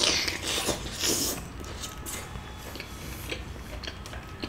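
Close-miked eating: soft, wet bites of Afghani chicken in a creamy butter gravy, picked by hand from a foil container. Two short noisy bites or slurps come in the first second and a half, then quieter chewing with small mouth clicks.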